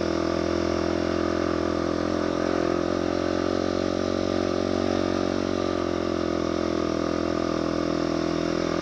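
Motorcycle engine pulling steadily at an even pitch while climbing a steep grade.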